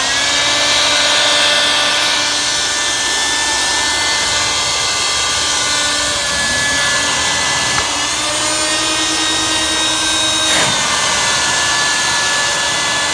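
Edco dual-motor concrete dust-collector vacuum switched on: its two vacuum motors whine up to speed and run steadily with a loud rush of air. The pitch rises again about six seconds in, and there is a brief knock at about ten and a half seconds.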